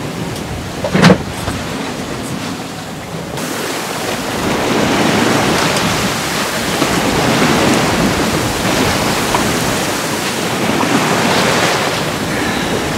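Wind and sea rushing along the hull of a sailboat under way, getting louder from about four seconds in. A single sharp knock about a second in.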